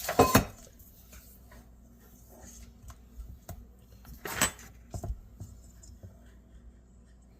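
A spoon clinking and tapping against a bowl while cake batter is stirred: a few loud clinks at the start, another about four and a half seconds in, and lighter taps between.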